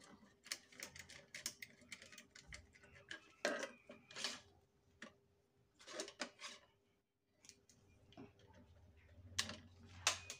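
Faint, irregular clicks and taps of hand tools and wires being handled on a plastic modular switch board, with a few louder knocks now and then.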